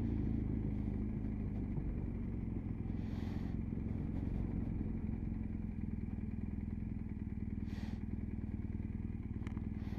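Motorcycle engine running steadily at low speed as the bike slows almost to a stop, a low even drone.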